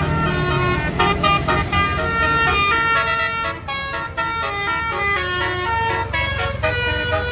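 Bus telolet horn, a multi-note basuri air-horn set, playing a fast melody of short stepped notes that change pitch several times a second, over the low rumble of the bus's engine.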